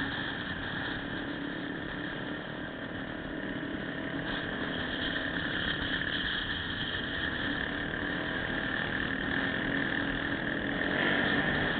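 Motorcycle riding at speed on an expressway, heard from a camera mounted on the bike: a steady engine drone mixed with wind and road noise, growing slightly louder near the end.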